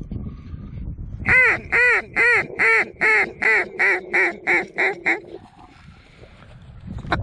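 Mallard duck call blown in a hen's descending call: about ten quacks, starting about a second in, each one shorter, quicker and a little lower than the last.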